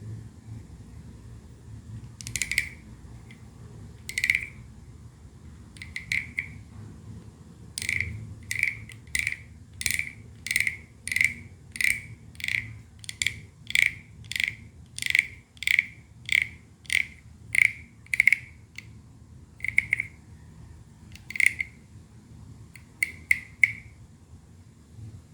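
Wooden frog scraper croaking as a stick is rubbed along the ridges on its back, each stroke a short rasp with a woody ring. A few spaced croaks come first, then a steady run of about one and a half croaks a second. After that there are a couple of spaced croaks and a quick group of three near the end.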